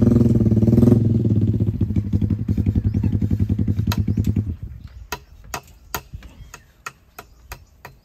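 Custom motorcycle engine running with a rapid low pulse, its pitch wavering briefly at first, then shut off about halfway through. A string of sharp clicks follows.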